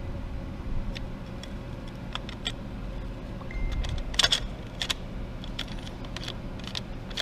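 Light metallic clicks and clinks of a Ducati Monster 620 wet clutch's pressure plate being worked by hand onto the clutch basket and plate stack, with a short run of louder clinks about four seconds in.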